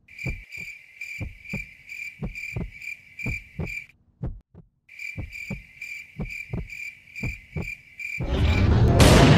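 Crickets chirping in an even, rapid pulse over a slow heartbeat thumping, both dropping out for about a second midway. Near the end a loud rising whoosh swells up and drowns them.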